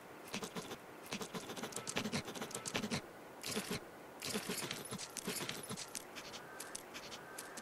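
Irregular bursts of rapid scratching and clicking, like claws scrabbling on ice, from the Scrat animatronic show as the squirrel clings to the ice reaching for its acorn.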